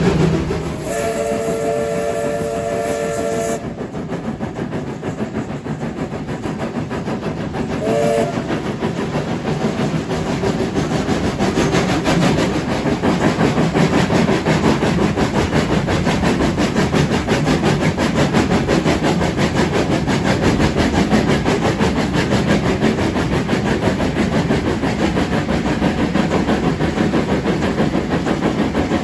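Steam locomotive whistle: one long blast of several tones at once, starting about a second in and lasting about two and a half seconds, then a short toot at about eight seconds. After the whistle the steam train runs on with a steady, fast rhythmic sound of the locomotive working and the carriage rolling on the rails.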